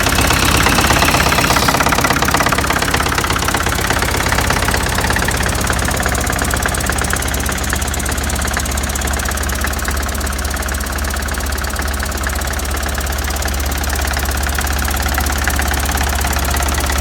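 Bulldozer's diesel engine running just after a cold start, a little louder for the first couple of seconds and then settling to a steady idle.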